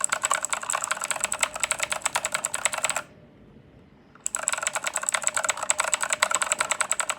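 Fast typing on a Redragon K552 mechanical keyboard with clicky blue switches: a dense run of key clicks that stops for about a second near the middle, then starts again.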